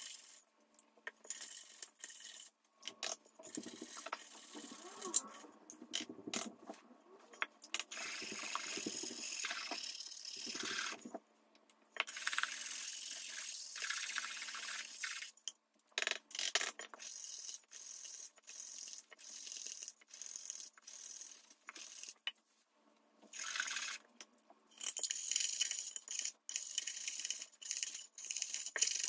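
Cotton swab rubbing rust off a small iron tin can, in stretches of scrubbing broken by short pauses, with light clicks and knocks as the can is handled and turned.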